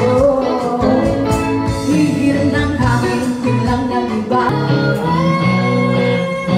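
A woman singing into a microphone, amplified, with live guitar accompaniment; she holds longer notes near the end.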